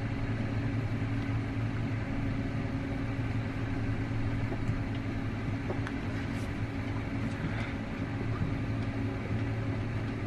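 Steady low mechanical hum of a running motor, with a few faint clicks.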